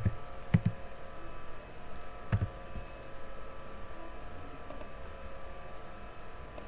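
A few computer keyboard keystrokes: sharp clicks at the start, about half a second in and about two and a half seconds in, over a faint steady hum.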